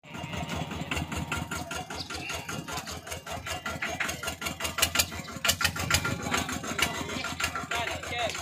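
A small engine running close by, with a steady low hum and a rapid, uneven run of knocks, several of them louder around the middle.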